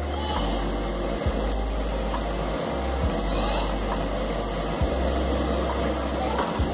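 Frozen paratha sizzling steadily on a hot iron tawa, with a few light taps and scrapes of a metal spatula.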